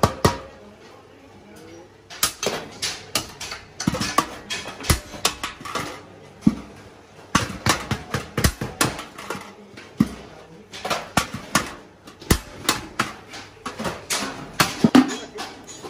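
A small hammer striking the rim of a galvanized sheet-steel bucket, sharp metallic taps in quick runs with short pauses between.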